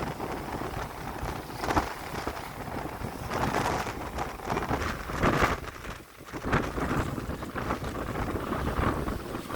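Strong wind buffeting the microphone in irregular gusts, with a deep rumble and crackling rushes that swell and fade every second or two.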